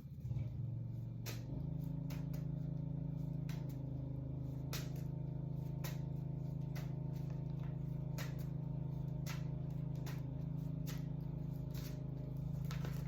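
A steady low hum that settles in about a second and a half in, with scattered light clicks and taps over it.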